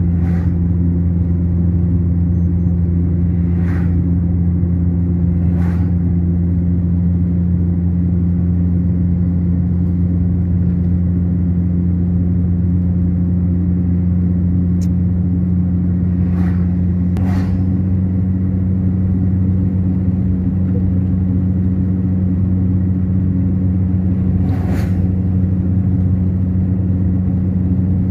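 A car driving at steady highway speed, heard from inside the cabin: a constant low engine and road drone. Several times, including right at the start, an oncoming vehicle passes with a short whoosh.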